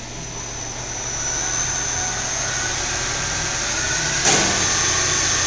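Clausing Metosa variable-speed engine lathe running in its low range, its drive hum and high whine growing louder over the first second and a half as the spindle speed is wound up from about 35 RPM, then running steadily. A brief knock about four seconds in.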